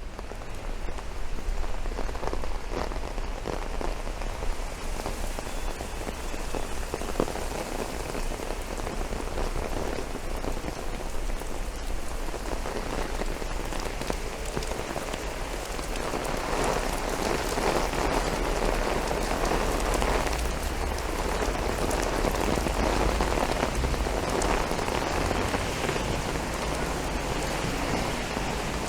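Steady rain falling and pattering on surfaces, with many close drop ticks and a low steady rumble of city traffic underneath.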